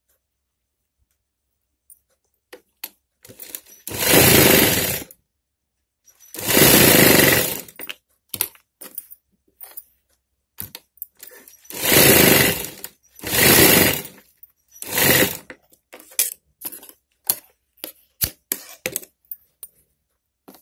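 Sewing machine stitching a seam in five short runs of about a second each, with clicks and brief rustles of the fabric being handled between and after them.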